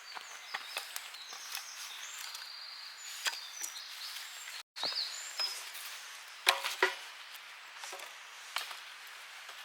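Firewood being broken up to start a campfire: scattered sharp cracks and knocks of wood, with a cluster of them near the end.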